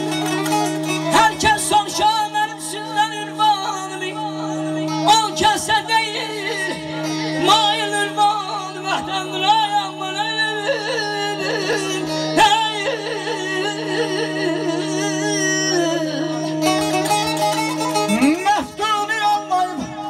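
Azerbaijani ashiq-style folk music: a man sings an ornamented, wavering melody into a microphone over a plucked saz and a steady drone held underneath, played through loudspeakers.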